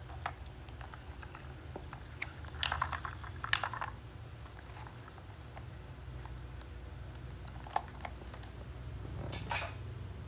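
Hard plastic toy tractor being handled: scattered light plastic clicks and knocks, with short clatters about two and a half and three and a half seconds in, a sharp click near eight seconds and another clatter near the end, over a low steady hum.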